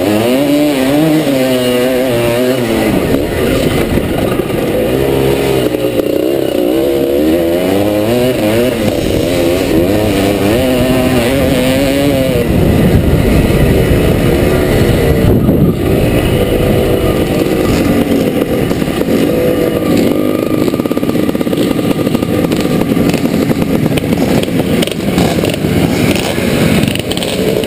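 1977 SWM 250RS's two-stroke single-cylinder engine under race load, heard from on the bike. For about the first twelve seconds the revs rise and fall repeatedly with throttle and gear changes, then run on more evenly.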